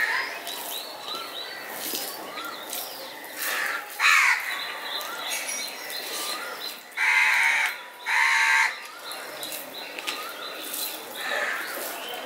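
Crows cawing: several harsh caws, the loudest two in quick succession about seven and eight seconds in, over small birds chirping throughout.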